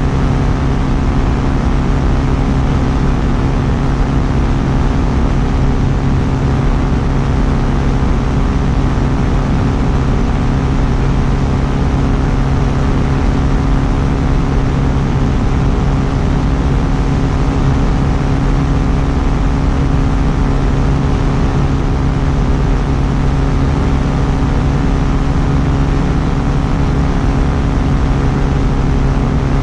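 Quicksilver Sport 2S ultralight aircraft's engine and propeller running steadily at a constant setting, a loud, even drone that holds one pitch throughout.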